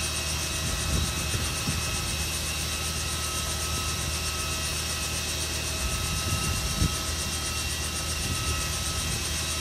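Robinson R44 Raven II helicopter idling on the ground, its six-cylinder Lycoming piston engine running steadily with the main rotor turning at low speed.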